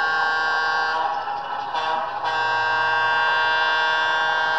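Air horn sounded by the ESU sound decoder in a Rapido HO scale Alco FA-2 model locomotive: a chord of several notes held, broken off briefly about two seconds in, then a second long blast.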